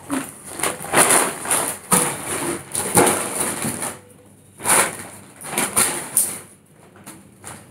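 Woven polypropylene IKEA FRAKTA shopping bag rustling and crinkling in irregular bursts as hands rummage through it, with short pauses in between.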